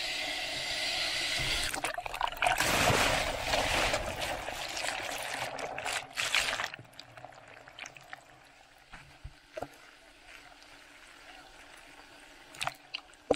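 A breaking ocean wave crashing over the camera: loud, churning rushing water for the first six or seven seconds. Then the sound drops to a dull, muffled hush with a few faint clicks and knocks as the camera is held under the whitewater, and a sharp splash comes right at the end as it breaks the surface.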